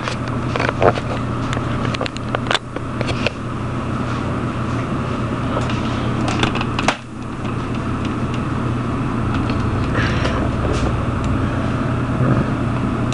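Steady mechanical hum. Several sharp clicks come in the first three seconds, another about seven seconds in, and a couple near ten seconds.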